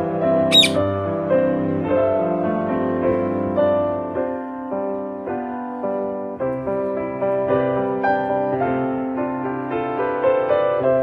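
Gentle background piano music with sustained notes, and one brief high-pitched sweep about half a second in.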